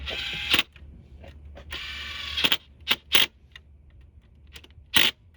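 Ratchet wrench working on the engine: two longer runs of ratcheting near the start, then three short sharp bursts.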